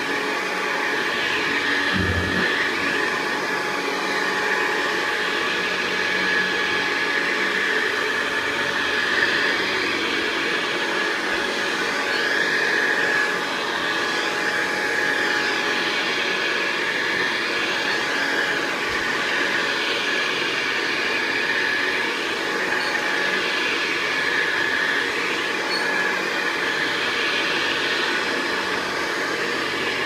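Hoover Convertible 589 upright vacuum cleaner running steadily, a high motor whine over a rushing air noise, as it is pushed over carpet.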